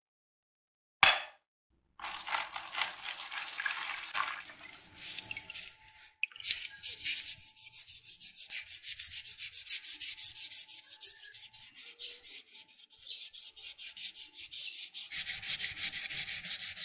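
A green abrasive scouring pad scrubbing rusty steel block-plane parts wet with white vinegar, in quick back-and-forth strokes at about four a second with short pauses: wiping off rust loosened by a 24-hour vinegar soak. A single sharp click comes about a second in, before the scrubbing starts.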